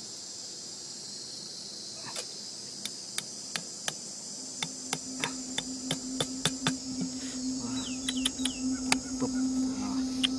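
Crickets chirring steadily, with irregular light taps and clicks from hatchet work that come more often in the second half. A low steady hum comes in about halfway.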